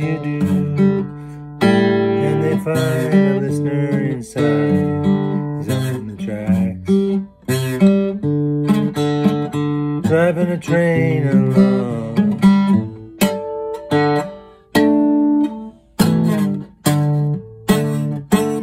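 Acoustic guitar being picked and strummed as a song, with a man singing over it for the first part; the notes come more sharply plucked near the end.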